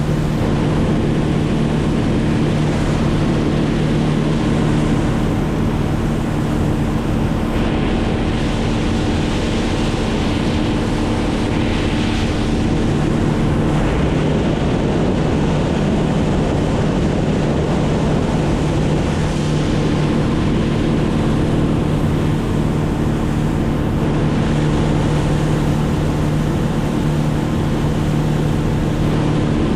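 A motor drones steadily at a constant speed over a rushing of wind, with the pitch wavering briefly about halfway through before settling again.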